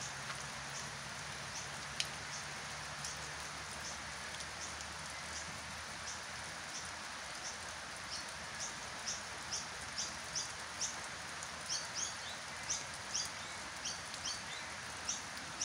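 Steady rain falling on wet grass and puddles, an even hiss. Over it a short high chirp repeats about twice a second, louder and more frequent in the second half, with one sharp tick about two seconds in.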